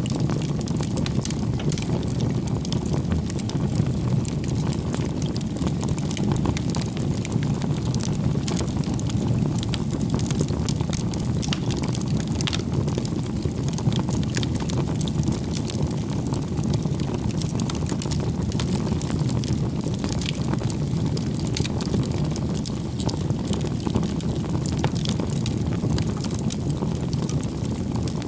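Wood bonfire burning: a steady low rush of flame with frequent small crackles and pops from the burning wood.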